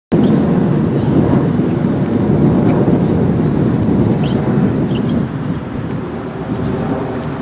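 Wind buffeting the microphone: a loud, steady low rumbling noise that eases slightly after about five seconds, with a few faint high chirps around the middle.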